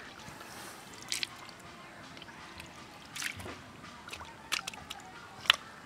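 A hand groping through shallow muddy water, making a few short squelches and splashes, the loudest near the end.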